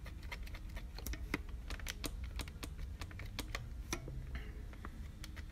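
Rapid, irregular light clicking, several clicks a second, over a steady low hum: small plastic keys or controls being pressed and worked by hand.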